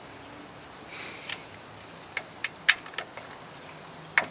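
A socket ratchet on a long extension clicking in a few sharp, irregular ticks as the valve cover bolts are run down on a four-cylinder engine. The loudest clicks come near the middle and just before the end.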